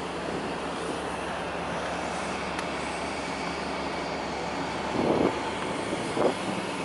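Steady wind noise across a ferry's open top deck, over a low, even hum from the ship's engines. Two short, louder bumps come about five and six seconds in.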